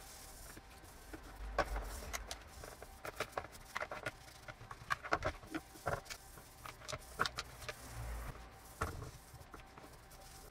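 A stiff brush scrubbing a black plastic part in a plastic basin of soapy water: irregular scraping strokes with clicks and knocks of plastic against the basin.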